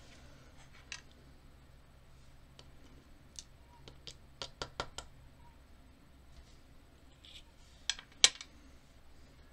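Small metal lock parts and tools clicking and clinking as they are handled and set down on a hard tray: a few single clicks, a quick run of four around the middle, and two sharp clicks near the end, the second the loudest.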